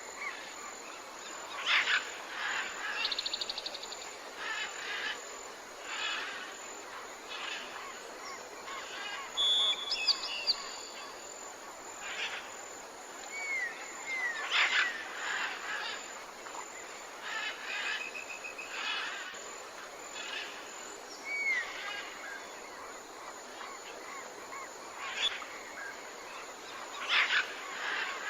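Birds calling and singing: short chirps, a few quick trills and some whistled notes that slide in pitch, scattered throughout over a steady soft hiss.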